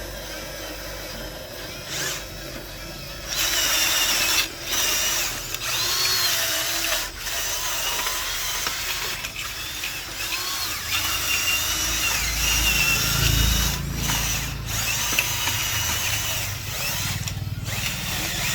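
A small electric motor whining, its high pitch wavering up and down, with several brief cut-outs and a low rumble building in the second half.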